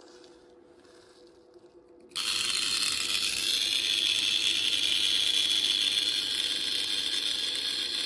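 Mains-powered chattering relay buzzing: its contacts keep breaking its own coil current, so the armature rattles rapidly and the sparking contacts throw EFT/burst-type noise onto the mains wiring. It starts suddenly about two seconds in as a loud, steady buzz.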